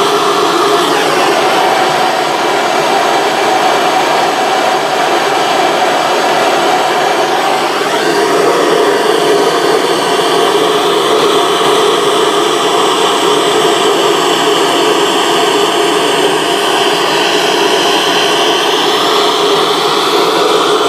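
Gas torch flame burning steadily against a silica crucible while the glaze is fired on: a loud, even rush of burning gas, with a faint tone in it that slides up and down now and then.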